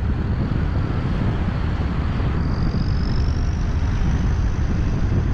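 Loud, steady low rumble of a vehicle in motion, with a faint high whine rising slowly through the second half.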